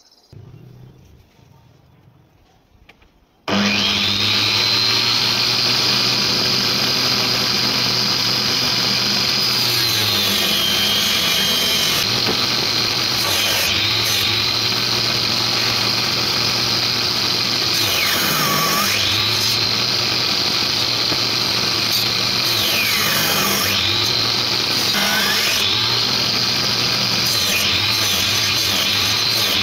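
Angle grinder fitted with a toothed circular saw blade and mounted under a table as a table saw, switched on about three and a half seconds in with a rising whine, then running loud and steady. Its whine drops in pitch about five times as the blade bites into laminated board and cuts it into blocks, recovering between cuts.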